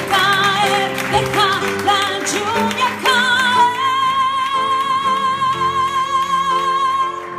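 Live pop ballad: a woman's voice sings a wordless run of ornamented notes with vibrato over the band, then holds one long high note with vibrato about halfway through.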